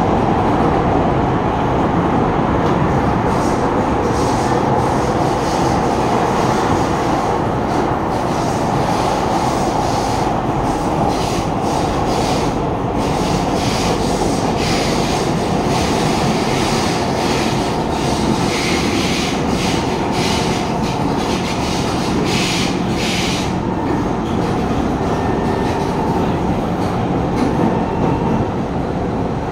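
A Kawasaki Heavy Industries C151 metro train running at speed through a tunnel, heard from inside the carriage: a continuous rumble of wheels on rail with a steady hum. Short bursts of higher-pitched wheel noise come and go between about ten and twenty-three seconds in.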